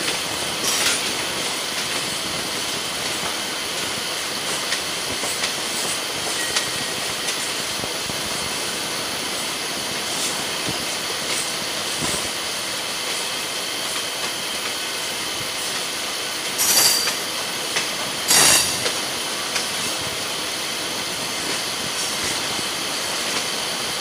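Steady running noise of train wheels on rails, heard from the open door of a moving suburban local with a train of passenger coaches running alongside. Two loud clattering bursts come about two-thirds of the way through.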